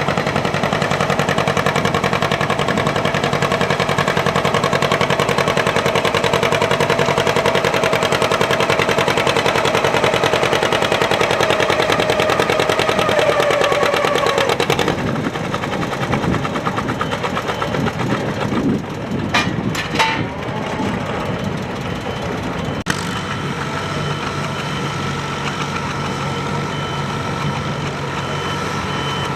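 Antique farm tractor engine pulling hard under load, its pitch sagging slightly as it lugs. About halfway through it drops back to a lower, steady idle with a few knocks, and near the end a reversing beeper starts up.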